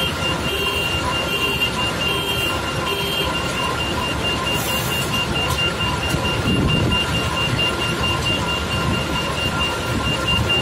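A heavy machine's engine runs steadily while its electronic warning beeper sounds, at about two beeps a second for the first three seconds, then faster and almost continuous. A short hiss comes about four and a half seconds in.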